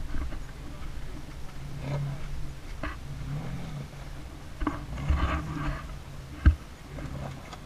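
Lifted Jeep Liberty's engine running low and slow as it crawls over rocks, its hum wavering with the load. A few sharp knocks break in, the loudest about six and a half seconds in.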